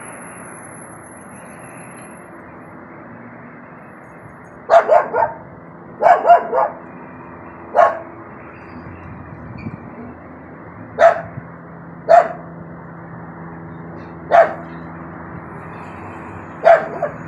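A dog barking: first a quick run of two or three barks, then another run of three, then single barks every two to three seconds. Under it runs a steady background drone.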